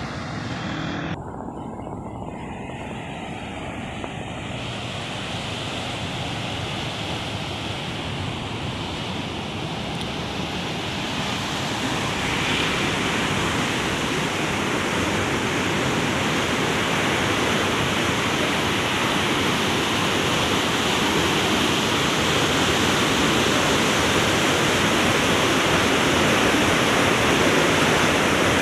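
Steady rush of water pouring through the sluice gates of a canal regulator, growing louder over the first dozen seconds and then holding.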